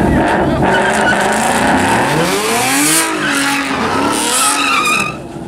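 Ford Mustang doing donuts: tires screeching on the pavement while the engine revs rise and fall several times, the noise easing off just before the end.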